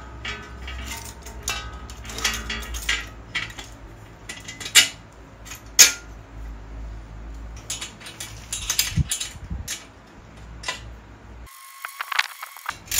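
Irregular metallic clicks, clinks and knocks of tools and bicycle parts being handled during work on a bicycle's front fork and brakes, two of them sharper and louder in the middle. A low hum underneath cuts off abruptly near the end.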